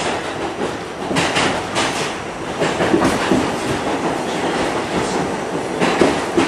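Running noise of a New York City subway train heard from inside the moving car in a tunnel. The wheels clatter on the rails, with bunched clicks about a second in and again near the end.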